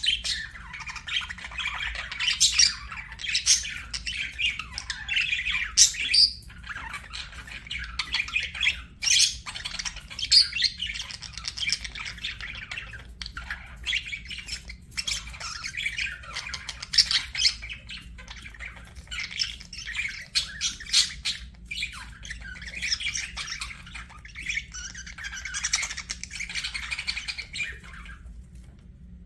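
Budgerigars chattering and warbling, with frequent sharp squawks and clicks in almost continuous bursts, broken by short pauses.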